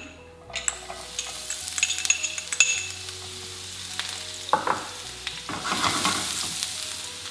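Diced onion sizzling in hot olive oil in a non-stick frying pan, with small crackles throughout. It gets louder for a moment about six seconds in as the pan is shaken.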